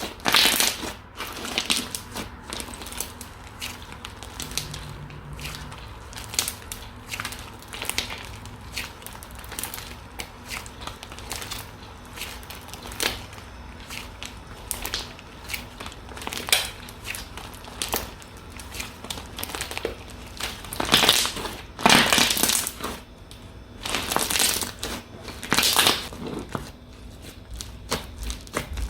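Slime being kneaded and squeezed by hand: a dense stream of irregular crackles and pops, with a run of louder squeezes about two-thirds of the way through.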